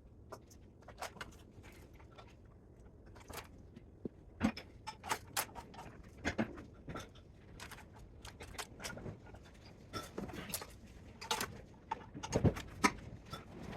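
Irregular light clicks and knocks of hand tools and metal parts being handled while a spot welder is taken apart for scrap, with a louder knock near the end.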